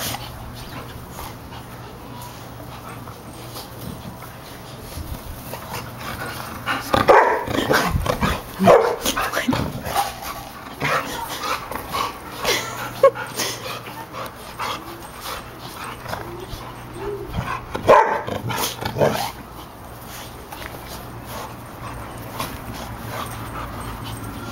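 Shih-tzu and golden retriever puppies playing, with clusters of short barks and yips. The barking comes in bursts: the first about seven seconds in, more a few seconds later, and another near eighteen seconds.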